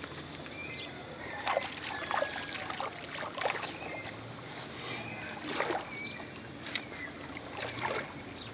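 Water splashing and sloshing in a series of separate splashes as a large redtail catfish (pirarara) is lowered back into the lake and released.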